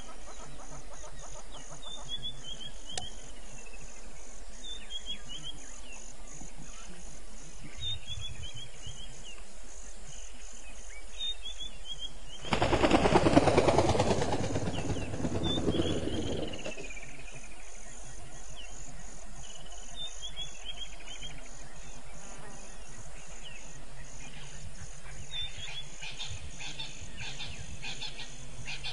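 A bird repeats a short descending call about every three seconds over a steady, pulsing insect chorus. About halfway through, a loud burst of noise lasts about four seconds and is the loudest sound here.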